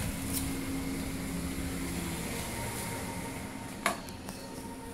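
Steady hum of a ventilation fan over an even hiss, with a single knock about four seconds in.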